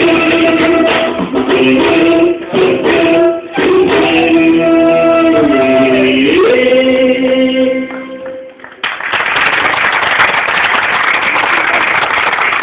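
Song with a voice holding long, gliding notes over instruments, ending about eight and a half seconds in; then loud applause from the audience.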